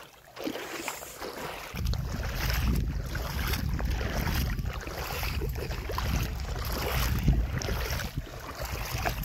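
Wind buffeting a phone microphone: a low, uneven rumble that starts about two seconds in and keeps going.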